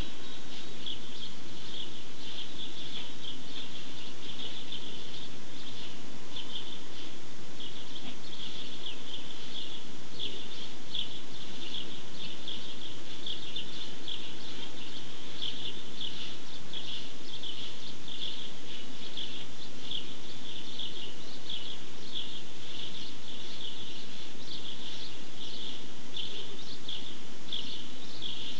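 Many small birds chirping rapidly and continuously in a dense chorus, over a steady low background hum.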